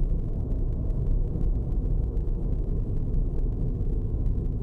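Steady low rumble of a car driving, heard from inside its cabin.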